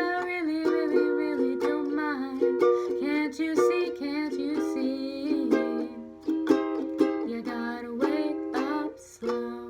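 Ukulele strummed in chords, with a final chord struck near the end that rings on and fades.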